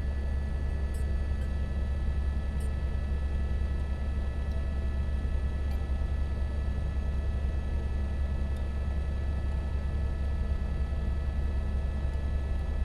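Single-engine helicopter in flight, heard from inside the cabin: a steady low rotor thrum with fast, even pulsing, under a constant set of high engine tones.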